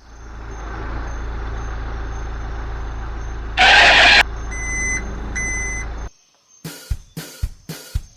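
Truck engine running steadily, with a loud half-second air-brake hiss midway, followed by two reversing beeps; the engine cuts off about six seconds in, and a few sharp drum hits start near the end.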